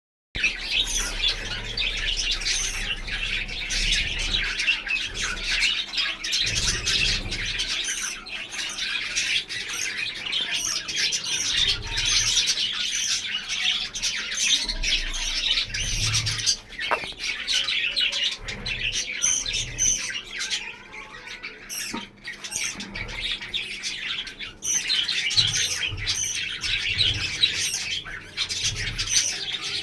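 A flock of budgerigars chattering continuously, many overlapping chirps, warbles and squawks.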